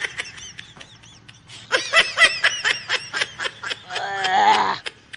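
A man laughing in short snickers, then letting out a wavering moan, reacting to the bitter taste of the bitter gourd he has just bitten.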